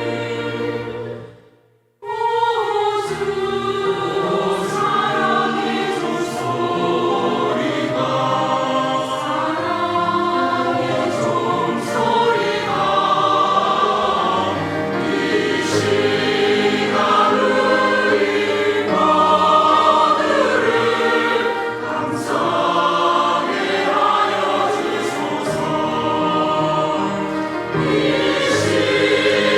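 Church choir singing a hymn anthem in parts. The sound fades out about a second in, and the singing comes back abruptly a moment later.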